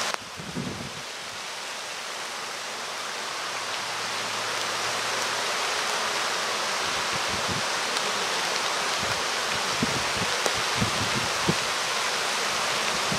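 Steady outdoor hiss that slowly grows louder, with a few soft low thumps in the second half.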